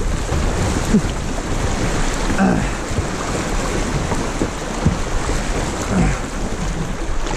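Fast river current rushing and churning through a rapid, close to a kayak's hull, with wind buffeting the microphone and a few brief gurgles of water.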